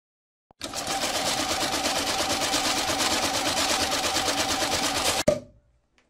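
Electric banknote counting machine running a stack of bills through, a fast even flutter that starts about half a second in and stops abruptly near the end.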